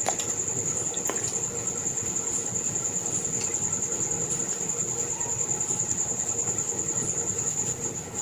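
A cricket chirping in a steady high pulsing trill, several pulses a second, with a faint click about a second in.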